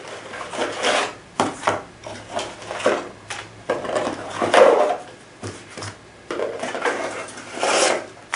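Cardboard box being opened and handled, with its contents slid out: a series of irregular scrapes and rubs of card, with paper rustling, the loudest a little past halfway.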